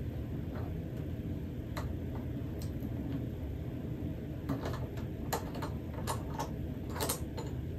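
Small scattered metallic clicks and taps as an Arca-type adapter plate is unscrewed from a telephoto lens's tripod foot, over a steady low hum.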